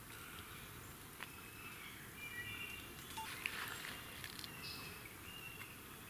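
Faint woodland creek-side ambience with a few short, high-pitched bird chirps, and a couple of small clicks.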